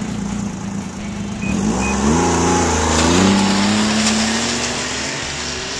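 Snowmobile engine revving as the sled pulls away. The pitch climbs about two seconds in, then holds fairly steady and grows slightly fainter near the end.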